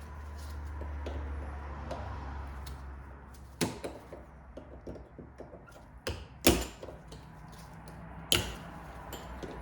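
Three sharp metal strikes, a few seconds apart, with small clicks and taps between them: a hammer driving a chisel against the stubborn retaining clips of a driveshaft U-joint. A low hum sounds for the first few seconds.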